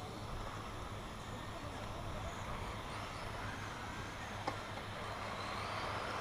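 Electric RC racing trucks running on an asphalt track, their motors and tyres making a whirring hiss that swells near the end as the pack comes closer. There is one sharp click about two-thirds of the way through.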